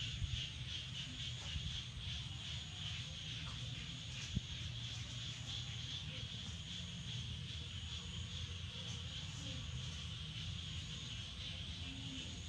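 Steady high-pitched insect chirring with a low hum underneath, and a single sharp click about four seconds in.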